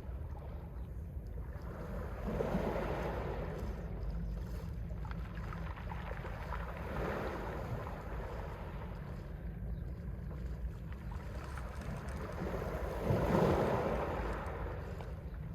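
Mediterranean Sea waves breaking three times, each surge swelling and fading, the last the loudest, over a steady low rumble.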